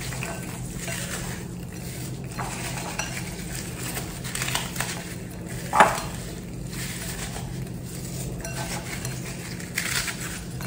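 Ritz crackers being crushed and crumbled by hand into a glass bowl: soft, irregular crunching and crackling, with one sharper knock against the bowl about six seconds in.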